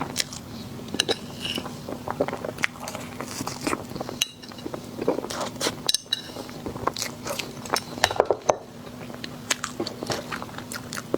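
Close-miked eating sounds: a person biting and chewing sweets, with irregular sharp crunches and clicks.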